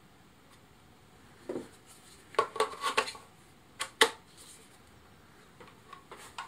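Handling noise from a plastic cordless-drill battery charger being turned over in the hands: a run of light knocks and clicks starting about a second and a half in, then two sharp clicks at about four seconds.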